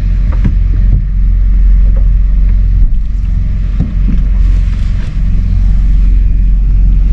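A vehicle engine running steadily with a low rumble, with a few light clicks and knocks over it.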